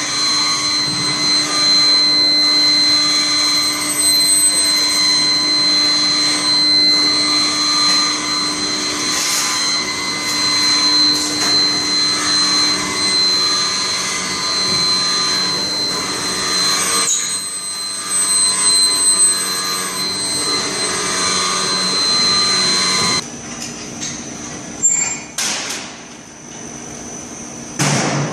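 Steady industrial machinery noise with a constant high whine. About 23 seconds in it drops off sharply, leaving a few sharp knocks and clatters.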